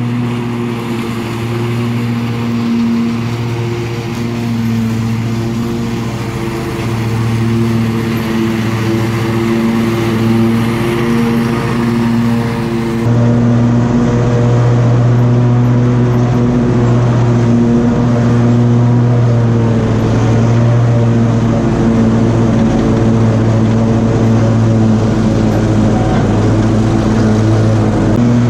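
Engine of a Cub Cadet RZT L 54-inch zero-turn riding mower running steadily while the mower is driven, a constant droning hum that grows slightly louder about halfway through.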